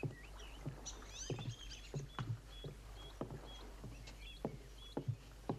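A rowboat knocking and splashing at a river landing: a string of irregular low knocks, about two a second, with water sounds, while birds chirp above it.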